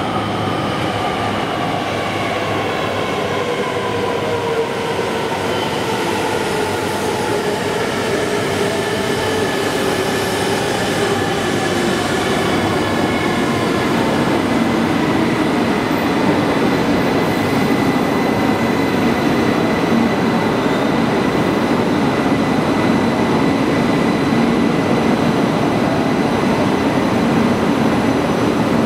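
JR East E3 series Tsubasa coupled to an E2 series Yamabiko Shinkansen pulling in at a platform and slowing down. A whine of several tones falls in pitch over roughly the first half as the train brakes. It then settles into a steady rumble with a level hum as the cars roll slowly past.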